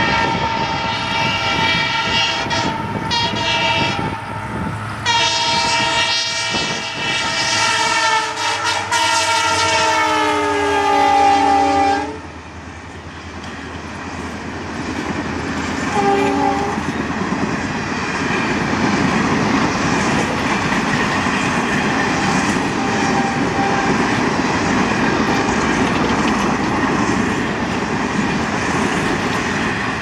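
Diesel locomotive horn of a WDP4 blowing long and loud as the express runs through at about 105 km/h, with a few short blasts about three seconds in. Its pitch falls as the engine passes, and the horn cuts off sharply about twelve seconds in. A brief second horn blast comes at about sixteen seconds, then the steady rumble and clickety-clack of the passenger coaches passing at speed.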